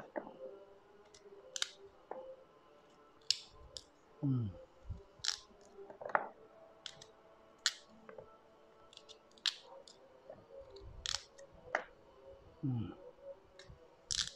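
Small kitchen knife shaving the skin off a raw sweet potato: short crisp scraping cuts, irregular, about one every second or two. Twice a short low sound that drops in pitch.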